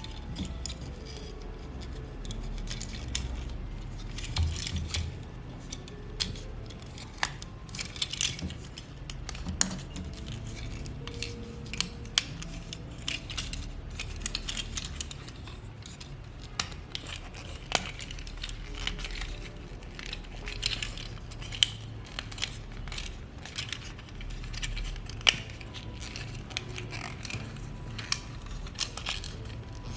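Irregular clicks, snaps and light clatter of a hard plastic Transformers toy being handled, its parts knocking and clicking.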